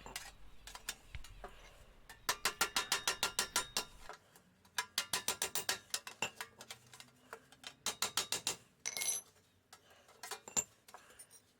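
Hammer striking a tucked sheet-metal edge over a solid round bar used as a dolly, knocking the puckers flat: three quick runs of rapid light metallic blows, about six a second, with a few single taps in between.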